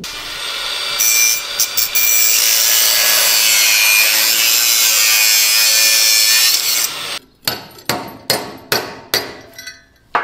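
A power tool grinding or cutting metal with a steady loud noise for about seven seconds, then a quick run of about eight sharp hammer strikes on metal, roughly three a second.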